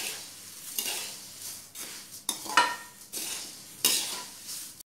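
Spatula scraping and tossing dry flattened rice (poha) around a metal kadhai, mixing it into the spiced oil tempering: a series of uneven scrapes, a few with a short metallic ring. The sound cuts off abruptly near the end.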